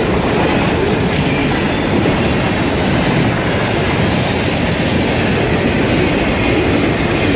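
Freight train cars rolling past close by: a steady, loud noise of steel wheels running on the rails.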